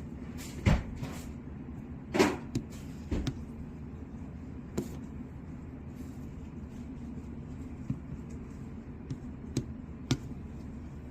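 Buttons of an LG wired air-conditioner remote controller being pressed and handled: scattered clicks and taps, the loudest about two seconds in, over a steady low hum.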